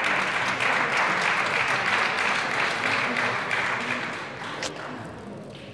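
Spectators applauding a won point, fading out after about four seconds. A single sharp click near the end, the table tennis ball being struck as play resumes.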